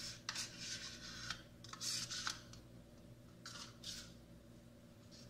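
A metal spoon scraping yogurt out of a small ceramic bowl onto a plate, in a few short scrapes and light clinks over the first four seconds.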